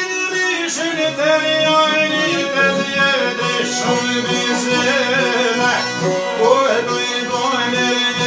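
Albanian folk music played live by a small band: violin, accordion and plucked long-necked lutes together, with a man singing over them.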